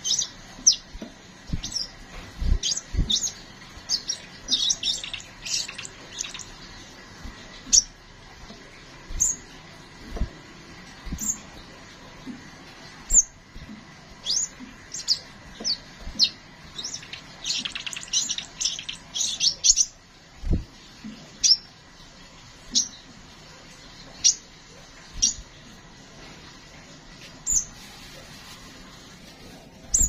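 Caged sunbird (kolibri sepah raja) calling in short, high chirps that each drop in pitch: frequent at first, a fast run of chirps about two-thirds of the way through, then single spaced chirps until near the end. A few low thumps come between the calls.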